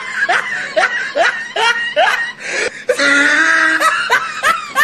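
A person laughing in a quick run of short rising 'ha' bursts, with a longer held laugh about three seconds in, then more bursts.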